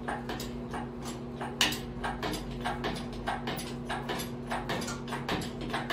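Engine hoist and lifting chain clicking and ticking as the garden tractor engine is raised, several light clicks a second with one sharper knock about a second and a half in, over a steady low hum.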